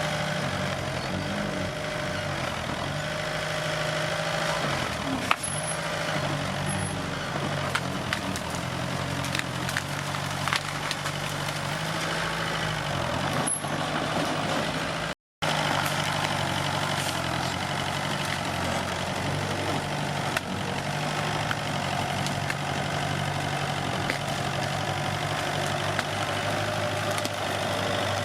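Komatsu D21P bulldozer's diesel engine running, its pitch dipping and recovering a few times as it works, with scattered knocks and clanks. The sound cuts out completely for a moment about halfway through.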